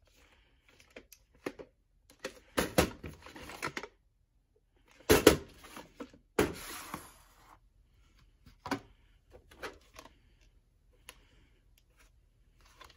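A VHS cassette and its sleeve being handled: scattered clicks and rustling of plastic, with a few louder knocks and scrapes about two and a half, five and six and a half seconds in as the tape comes out of the sleeve.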